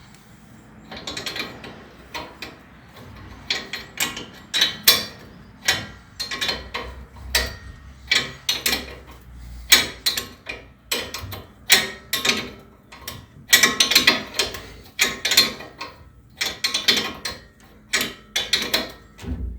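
Hand ratchet clicking in repeated short strokes, run back and forth to loosen the upper ball joint nut on a truck's front suspension. The click clusters come in uneven groups about every half-second to second.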